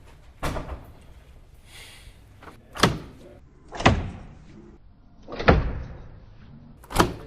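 A door being banged: five heavy thuds, one to two seconds apart.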